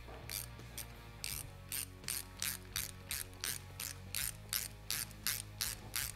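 Small hand ratchet clicking on quick back-swings, about three bursts a second, as the clutch lever clamp bolt on a motorcycle handlebar is run in before it is snugged up.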